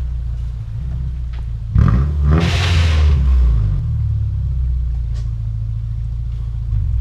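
Subaru engine running under load, revving up sharply about two seconds in with a brief loud rushing noise, then cut off right at the end.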